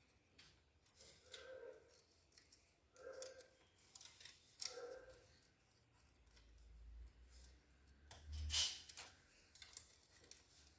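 Faint clicks and handling noises from hands working on copier parts, with one sharp click a little before halfway and a louder scrape or knock near the end.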